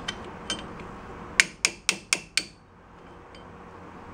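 Hammer striking a brass drift to drive a new bearing onto the axle of a VW bus reduction gear box: a couple of light taps, then a quick run of five sharp metallic strikes about a second and a half in, and one more at the end.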